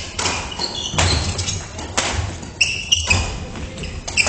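Badminton rally: rackets striking the shuttlecock, four sharp hits about a second apart that echo in a large gym hall, with brief shoe squeaks on the wooden court between them.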